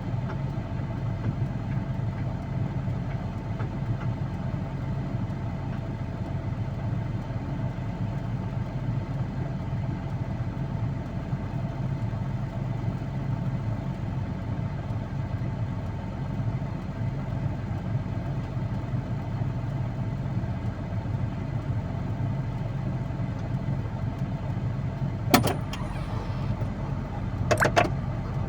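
Steady drone of a road-clearing machine's engine running, with a couple of sharp knocks near the end.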